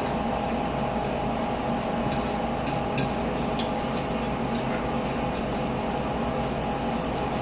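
Light clicks and taps of metal forks on plates, with chewing and eating sounds, over a steady hum.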